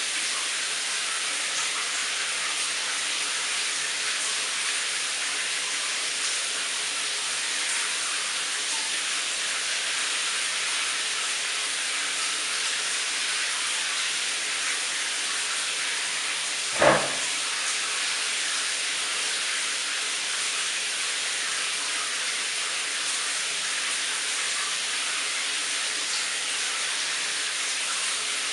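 Shower running: a steady hiss of water spray. It is broken once, about seventeen seconds in, by a single short knock.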